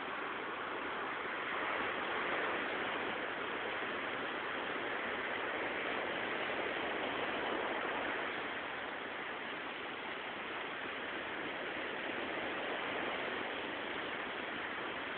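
Sea waves breaking and washing on the shore: a steady rushing surf that swells gently about two seconds in and again around seven seconds in.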